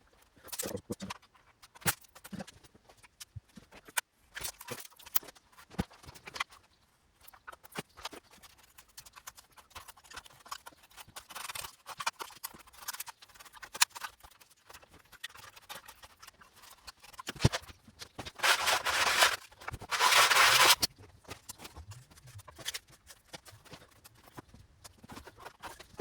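Covering film being cut back on a balsa model aeroplane: irregular sharp ticks and short scraping strokes, then two longer rasping stretches about three quarters of the way through.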